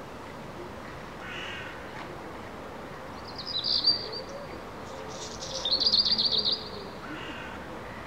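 A songbird sings two short, high, rapid trilled phrases, the second longer and made of quick repeated notes. Another bird gives fainter, harsher, lower calls before and after them.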